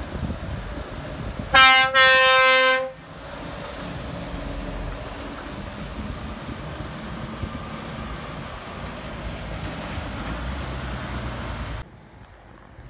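Truck air horn sounding one single-pitched tone, a short blast and then a longer one of about a second. A steady lorry engine and tyre noise follows as the trucks pass through the roundabout, dropping away suddenly near the end.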